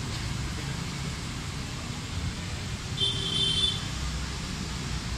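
Steady outdoor background noise with a low rumble of road traffic, and a brief high-pitched tone lasting under a second about three seconds in.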